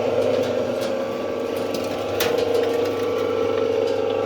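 Five-inch soap plodder running: a steady machine hum from its motor and gearing, with one sharp click about two seconds in.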